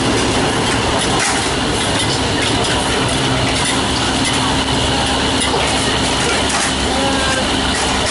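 A high gas wok burner's steady rush of flame and frying noodles sizzling in a heavy wok, with a metal spatula scraping and knocking against the wok now and then as the pad Thai is stir-fried.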